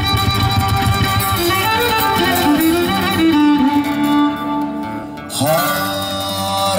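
Cretan folk music played live: a bowed Cretan lyra carries the melody over plucked laouto accompaniment in an instrumental interlude without singing. The music eases off briefly a little past the middle, then the lyra picks up again.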